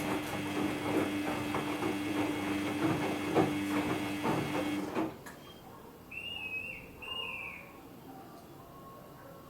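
Samsung EcoBubble front-load washing machine running a cotton wash cycle: a steady motor hum with irregular soft knocks from the tumbling load, which cuts off suddenly about five seconds in. Two short high chirps follow about a second apart.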